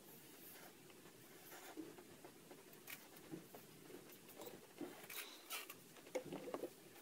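Black felt-tip marker scratching faintly on paper in short strokes as circles are drawn.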